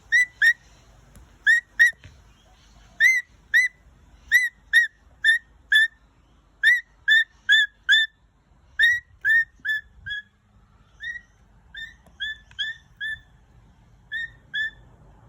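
Pet parrot giving short whistled chirps over and over, often in quick pairs, about two a second.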